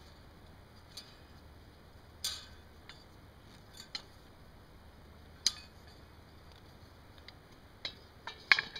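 Steel CampMaid cooking stand being folded and set down inside a cast iron Dutch oven: scattered light metal clinks and knocks of steel against iron, the sharpest a little past halfway, with a quick run of clinks near the end.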